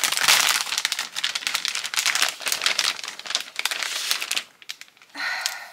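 Paper and packaging crinkling and rustling as the contents of an opened package are handled. It thins to a few clicks about four and a half seconds in, with one more short rustle near the end.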